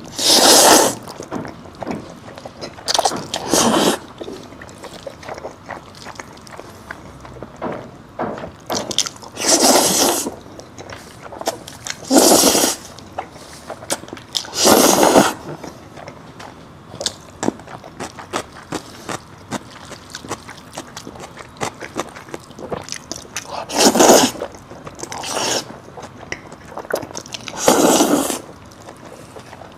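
Close-miked eating: loud, crunchy bites come every few seconds, each about half a second to a second long, with quieter chewing and mouth clicks between them.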